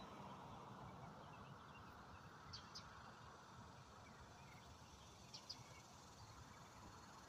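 Near silence: faint outdoor background noise, with a small bird giving a quick high double chirp twice, about three seconds apart.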